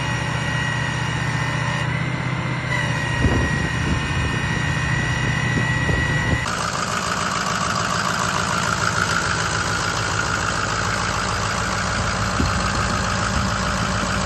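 2006 Ford F-250 Super Duty engine running steadily at idle. For the first six seconds a steady high whine sits over it. Then the sound changes abruptly to the engine heard up close at the open engine bay.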